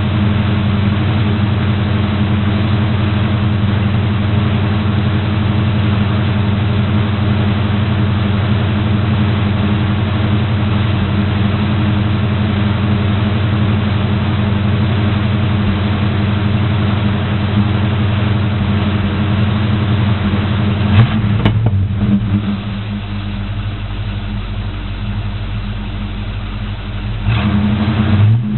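A 1984 GMC pickup's V8 idling through Dynomax Turbo mufflers on dual 2¼-inch pipes with an H-pipe, warming up after a cold start. Toward the end the idle drops to a lower, quieter note for a few seconds, then picks back up just before the end.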